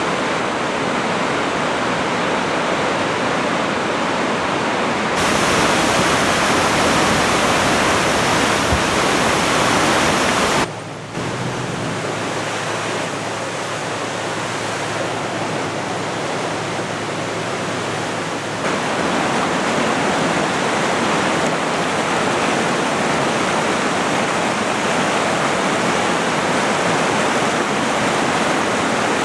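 Swollen Coquihalla River rushing: a steady noise of fast-flowing high water, risen after recent rain. The level jumps abruptly a few times, and a faint steady low hum sits under it for several seconds in the middle.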